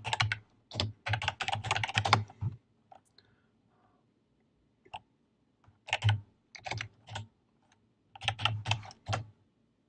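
Typing on a computer keyboard: a fast run of keystrokes in the first couple of seconds, a few single key presses, then two more short runs in the second half.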